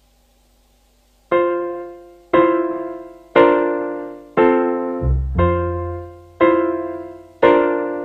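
Piano music: after about a second of near silence, chords are struck about once a second, each one fading away, with low bass notes joining near the middle.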